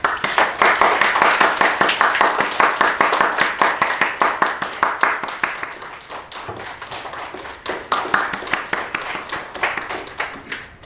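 A small audience applauding, with the separate claps easy to pick out. The clapping thins out about six seconds in, picks up again, and stops near the end.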